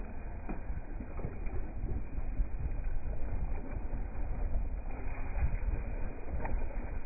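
Dragon boat paddles splashing into the water stroke after stroke as the crew paddles hard, with water rushing along the hull and a steady low rumble.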